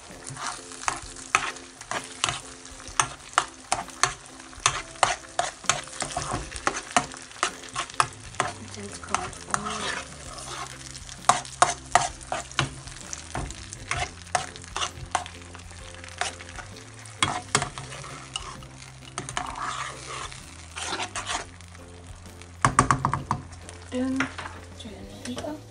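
A spoon stirring and scraping diced apples through bubbling butter and maple toffee sauce in a frying pan: frequent irregular clicks of the spoon against the pan over a steady sizzle.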